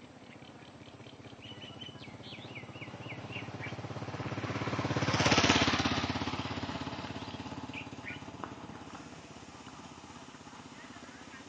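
A motorcycle engine approaching, passing close by and fading away, loudest about five and a half seconds in. Birds chirp over it, with a quick run of chirps early in the pass and a few more later.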